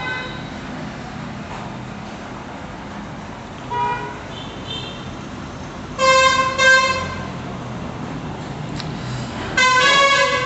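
Vehicle horns honking: a short toot about four seconds in, two louder blasts in quick succession around the middle, and another loud blast near the end.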